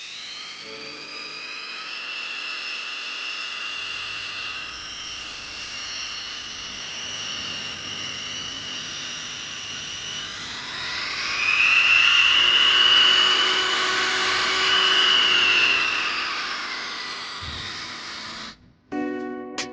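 Kova mini electric grinder (engraving tool) running with a high-pitched whine; about eleven seconds in it rises in pitch and gets louder, eases off again around sixteen seconds, and cuts off suddenly near the end.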